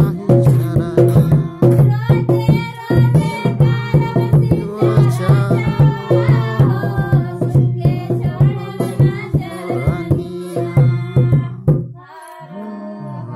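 Indian folk song with tabla and quick percussion under a male singing voice. About twelve seconds in the accompaniment stops and the voice sings on alone.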